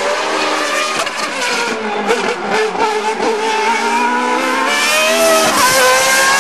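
Race car engine at full throttle. The pitch climbs and drops back at each gear change, most plainly a little over five seconds in.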